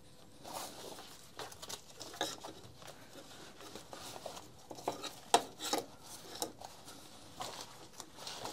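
Fabric shoulder straps of a trimmer harness rustling and rubbing as they are handled, with scattered clicks and taps from plastic buckles and the plastic back plate; the sharpest click comes about five seconds in.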